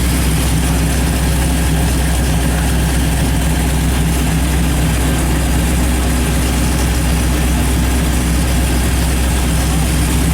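Car engine idling steadily with a deep, unchanging low drone, in traffic stopped at a red light.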